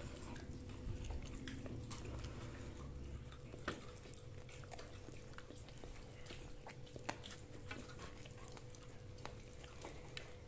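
A person eating: soft chewing with scattered light clicks and taps of hands and food, over a faint steady hum.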